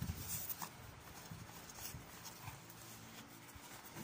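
Faint handling of a small cardboard box, with soft scrapes and clicks in the first second as it is turned and pried at. The box is tightly sealed.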